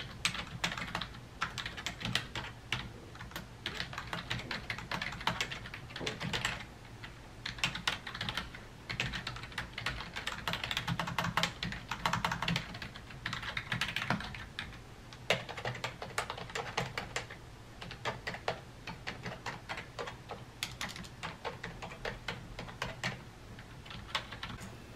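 Typing on a Microsoft Wired Keyboard 600, its membrane keys giving quick runs of soft clicks with a few short pauses; a very quiet keyboard.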